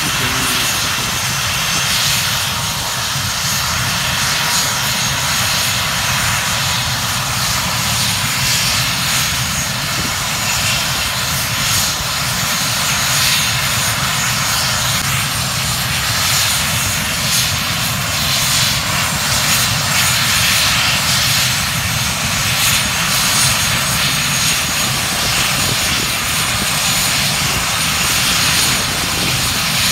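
Mil Mi-17 twin-turbine helicopter running on the ground with its main rotor turning, ahead of lift-off: a steady, loud mix of engine and rotor noise.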